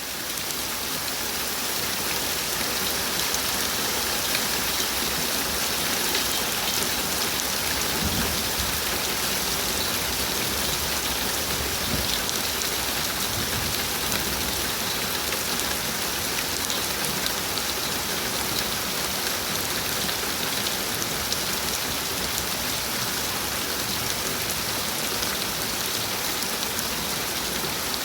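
Steady summer rain falling in a forest, a dense even hiss of drops with fine patters on surfaces.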